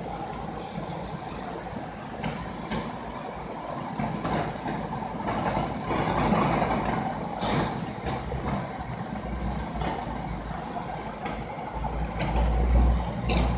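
Car engine running steadily, heard as a low rumble from inside the car; the rumble grows louder near the end.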